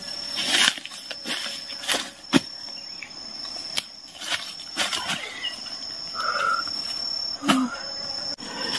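Insects trill with a steady high tone that breaks off and resumes. Over it come footsteps crunching through dry leaf litter and the rustle of undergrowth as someone walks and then crouches.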